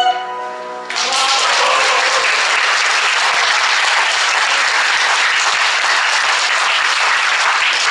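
The closing note of a song for soprano and piano fades away, then audience applause starts about a second in and goes on steadily.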